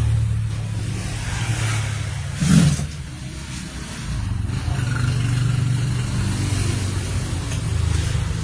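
Low engine rumble, rising and falling in level, with one short loud knock about two and a half seconds in.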